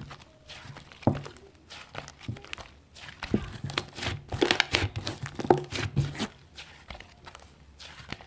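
Hands kneading and squeezing slime, making irregular crackling and clicking sounds.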